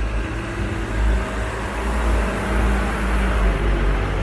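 Steady low rumble of a large engine running at slow, even speed, with a faint hum above it and a background hiss.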